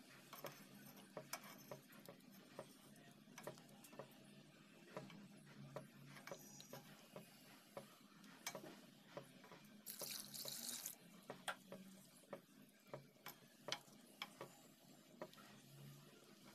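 Faint, irregular clicks and knocks of a wooden spoon against a steel pot while thick gram-flour and yogurt batter is stirred, with a brief hiss about ten seconds in.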